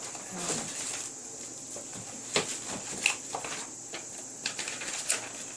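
Keyboard box and its contents being handled while unboxing: rustling with a few sharp knocks, the loudest about two and a half, three and five seconds in, over a faint steady high-pitched whine.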